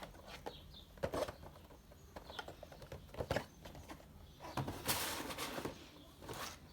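Funko Pop boxes being handled: scattered light knocks and clicks of cardboard and plastic packaging, with a longer rustle about five seconds in.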